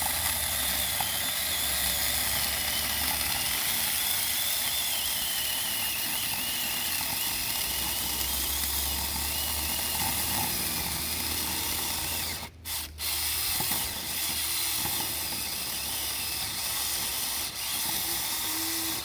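Saker 6-inch battery-powered mini chainsaw cutting through seasoned beech, its chain and motor whine wavering as the load changes. It stops briefly about two-thirds through, starts again and cuts off at the end.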